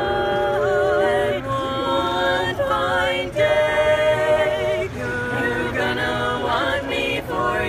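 Voices singing a cappella in long, wavering held notes that change pitch every second or so.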